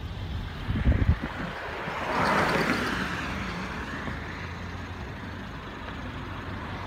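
Car engine and road noise heard from inside the car, with a few low thumps about a second in and a swell of noise that builds and fades around two to three seconds in.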